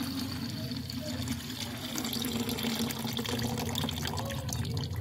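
Liquid being poured from a steel pot into a plastic bucket: a steady, continuous pour and splash.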